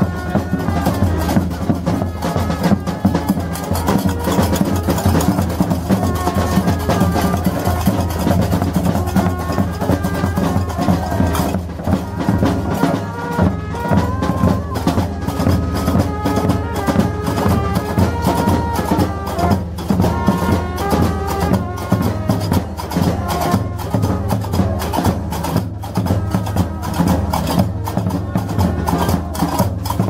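Moroccan folk troupe playing in the street: drums and fast, steady clacking hand percussion, with a melody line above it.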